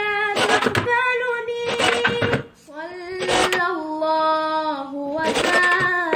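A solo voice singing an Arabic nasheed, holding long notes that slide and waver between pitches, with a short break about two and a half seconds in.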